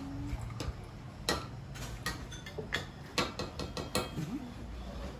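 Kitchenware being handled: a dozen or so light, irregular clinks and taps of cups, jugs and utensils, a few with a brief ring.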